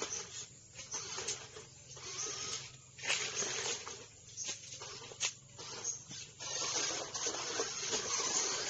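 Radio-controlled 4x4 crawler trucks driving on gritty dirt: a whirring, hissing noise of motors and tyres in bursts that start and stop, with a few sharp clicks.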